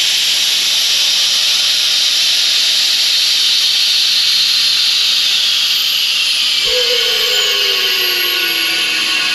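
Air-bag suspension on a 1991 Toyota pickup dumping air with a loud, steady hiss as the truck lowers to the ground. A whistling tone joins about seven seconds in and falls slowly in pitch.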